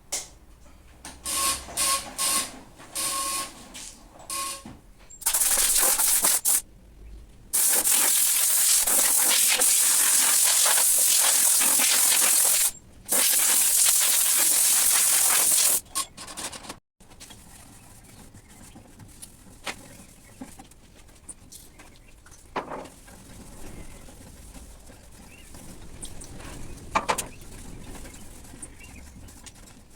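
Compressed-air blow gun cleaning dust off a lawn mower: a few short puffs with a whistling tone, then long hissing blasts of several seconds each. After about seventeen seconds the blasting stops and only faint knocks and rubbing remain.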